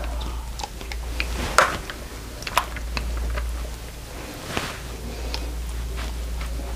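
Light taps, clicks and soft knocks of fresh lasagne sheets and a spoon being handled in a baking tray, with a few sharper knocks spread through, over a steady low hum.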